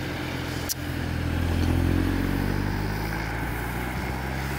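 A road vehicle's engine running with a steady low hum that swells about a second and a half in and then eases off, with a single short click under a second in.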